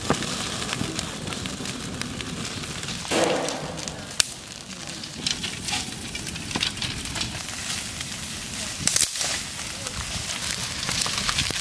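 Open fire of dry sticks and straw crackling under grates of whole eggplants being charred, a steady hiss with many sharp pops throughout.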